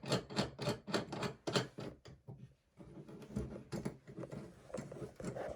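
Rapid, evenly spaced metallic clicks of hand tools being worked on a pistol slide, about four a second for the first two seconds, then fainter scattered clicks and handling noise.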